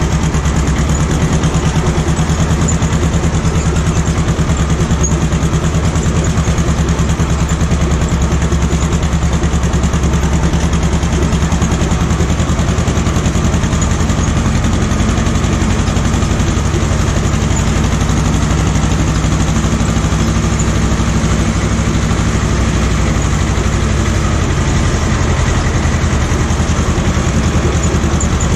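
Ursus C-330M tractor's two-cylinder diesel engine running steadily.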